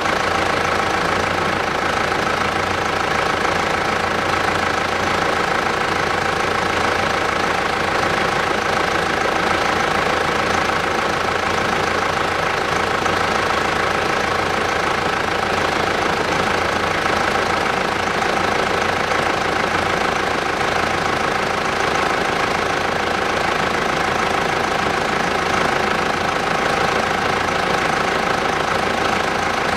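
Mitsubishi Pajero's 3.2-litre four-cylinder turbodiesel idling steadily.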